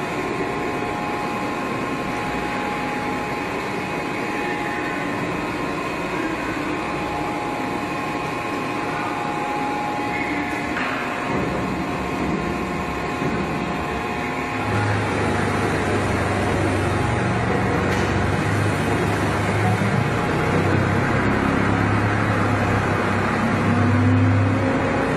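Steady hum of heavy workshop machinery. About halfway in, a deeper low hum joins and the sound grows a little louder, peaking near the end.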